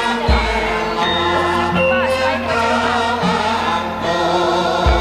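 Javanese gamelan music with voices singing along in held notes. A deep low stroke sounds shortly after the start and another near the end.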